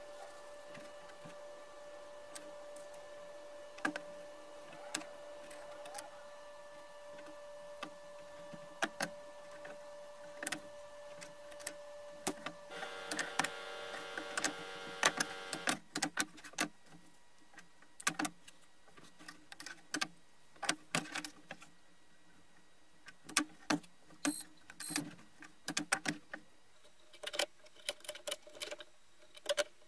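Hand tools and a tape roll being handled on an MDF table top: scattered sharp clicks and taps, growing more frequent in the second half, over a steady hum.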